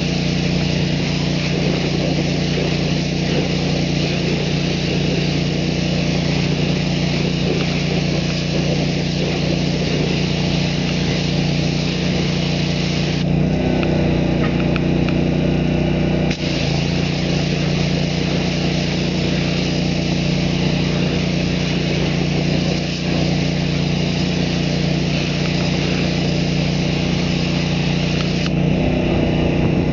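Engine-driven pressure washer running steadily while its wand hisses as it sprays water and cleaning solution onto an aluminum truck wheel. The spray stops for about three seconds near the middle and again near the end, and the engine note shifts each time it stops.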